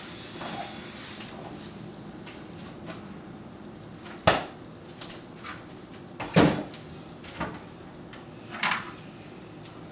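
Kitchen handling sounds: doors and things knocked shut and set down, four separate knocks, the loudest a little after halfway, over a steady low hum.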